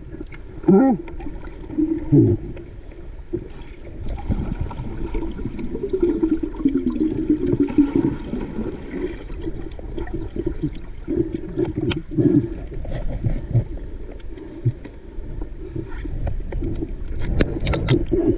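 Muffled underwater sound picked up by a submerged camera: a low, churning water noise from the diver moving through the water, with a few wavering low sounds early on and short louder bursts near the end.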